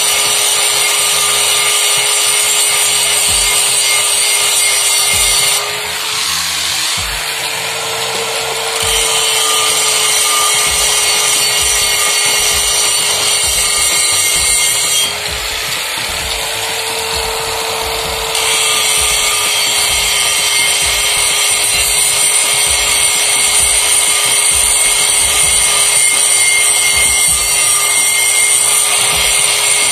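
Electric angle grinder grinding the inside of a Mahindra Bolero pickup's cast-iron brake drum: a steady motor whine under harsh grinding. Twice, about six and fifteen seconds in, the grinding drops in level for about three seconds and the whine rises slightly.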